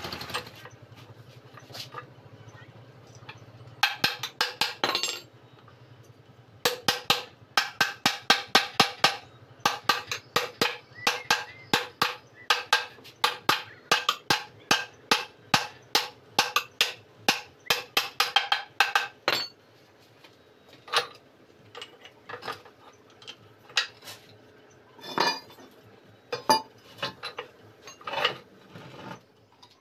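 Hammer strikes on steel, about two a second for some twelve seconds, each with a short metallic ring, as the main shaft is driven into a Tata 407 GB-20 gearbox casing. A few scattered taps follow near the end.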